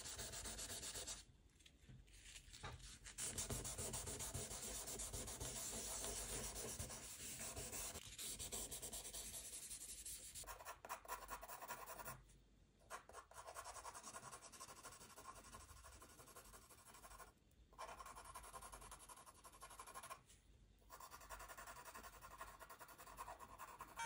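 A drawing tool rubbing across paper in steady shading strokes, stopping briefly several times.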